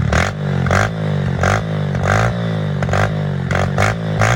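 Honda 125 four-stroke engine breathing through an FMF Power Core 4 exhaust, running and revved in repeated short throttle blips at irregular intervals.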